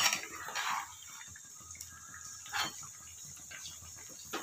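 Boiled potato chunks frying in hot oil in a pan, a steady faint sizzle and bubbling, with a few brief scrapes and stirs of a spatula against the pan.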